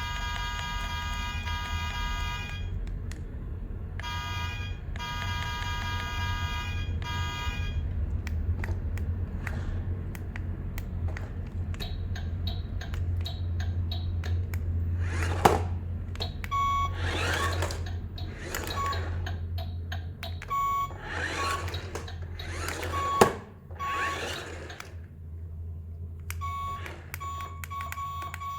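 Electronic sound effects. A buzzing, horn-like tone sounds in several blasts over the first seven seconds, over a steady low hum. Later come swishing sweeps, two sharp clicks and short repeated beeps.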